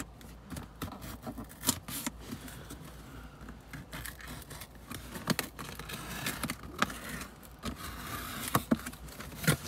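A cardboard shipping box being opened by hand: packing tape picked at and peeled, and cardboard flaps scraping and rustling, with many short sharp clicks and crackles.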